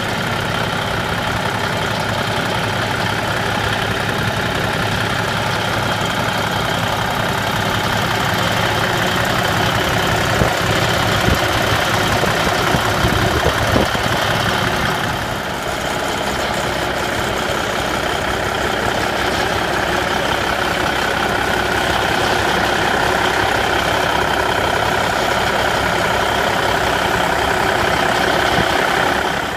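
Cummins NTC 400 inline-six diesel of a 1991 International 8200 tractor idling steadily, heard close up at the open engine bay, dipping briefly in level about halfway through.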